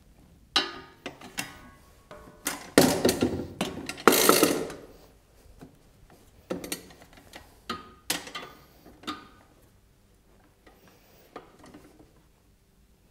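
Metal parts of a four-fold paper briquette press clattering and knocking as its perforated grid is seated and its steel lever frame is swung into place. The loudest rattling comes about three to five seconds in, followed by a few scattered knocks.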